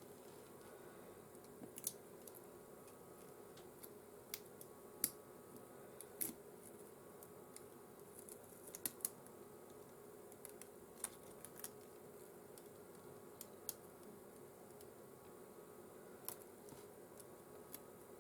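Scattered small sharp clicks and ticks of tools and parts being handled during an iPhone back-glass replacement, over a faint steady hum. The clicks are irregular, a dozen or so, the loudest about five, six and nine seconds in.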